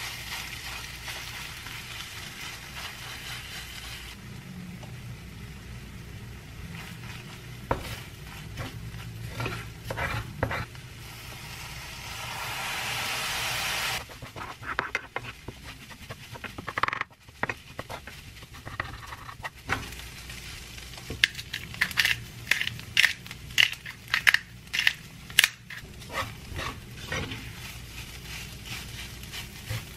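Egg fried rice sizzling in a nonstick frying pan while a wooden spatula stirs and scrapes it. A louder sizzle swells about halfway and stops abruptly. In the second half there is a quick run of spatula taps and knocks against the pan.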